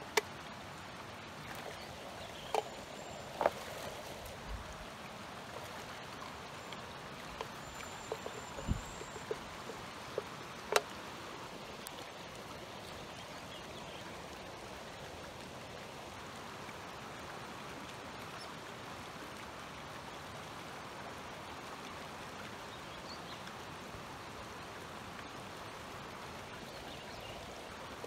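Shallow, rocky mountain creek flowing steadily. A few short, sharp clicks and ticks stand out during the first ten seconds or so.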